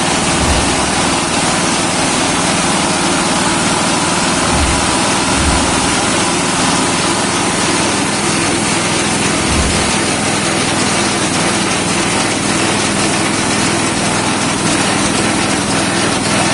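Crumble pellet machine for chicken feed running: a loud, steady mechanical drone with grinding noise, and a few brief low thumps about half a second, four and a half, five and a half and nine and a half seconds in.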